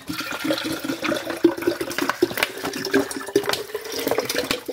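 Water running into a plastic spray bottle to refill it, splashing steadily, with a pitch that rises slowly as the bottle fills.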